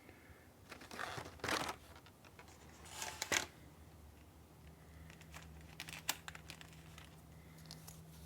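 Handling noises: two rustling, crinkling bursts about a second and about three seconds in, then a few light clicks.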